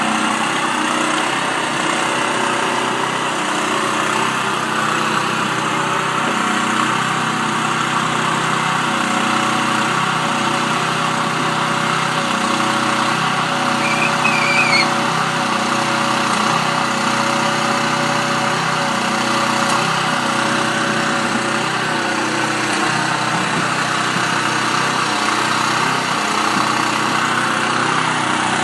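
An engine running steadily at a constant speed, with a brief high chirp about halfway through.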